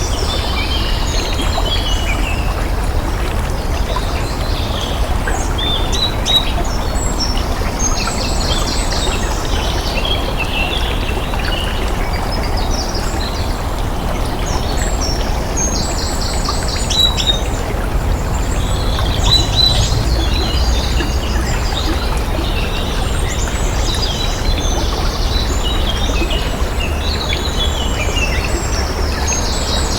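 Steady rush of flowing water with many birds chirping and trilling over it throughout.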